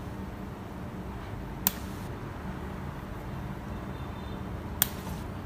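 Two sharp finger snaps about three seconds apart, over a steady low hum.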